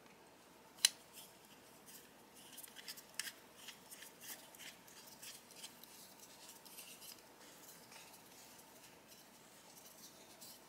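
Small metal clicks and light scraping as a crimped coax cable's F connector is screwed onto the threaded port of a Klein Tools coax tester. One sharp click about a second in, then a run of faint ticks.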